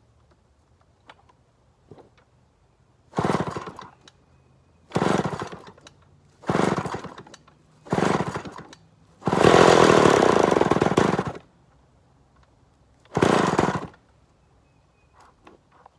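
Homelite XP1000 chainsaw being pull-started on its first start after a carburettor conversion to a Tillotson 324 clone: six short bursts of cranking and sputtering, one per pull. In the middle it runs for about two seconds, then dies again.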